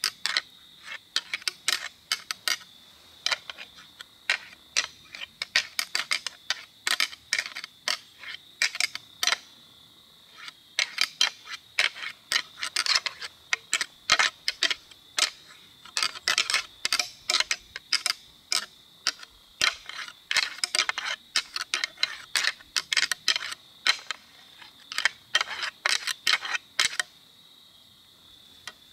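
A pair of whitetail deer antlers rattled together by hand in repeated bursts of sharp clacking and grinding, imitating two bucks sparring to draw in a rutting buck. The rattling stops near the end.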